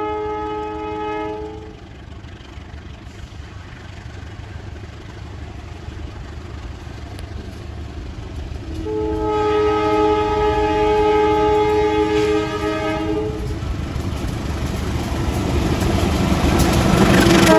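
KAI CC204 diesel-electric locomotive approaching with its multi-tone air horn sounding: one blast cuts off about two seconds in, a second long blast sounds from about nine seconds in for some four seconds, and between and after them the diesel engine rumbles. Near the end the engine and train noise grow loud as the locomotive passes close.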